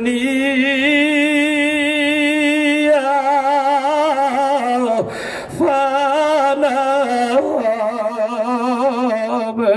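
A man's voice singing long, drawn-out notes with a wavering vibrato into a microphone: the melodic chanting delivery of a Bengali waz sermon. The voice breaks off briefly about five seconds in, then carries on with rising and falling held phrases.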